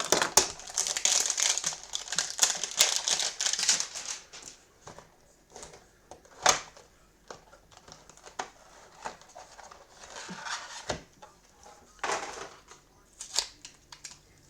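A football trading-card hanger box being opened by hand: packaging crinkling and tearing in dense rustling for about the first four seconds, then scattered clicks and shorter rustles as the cards are handled.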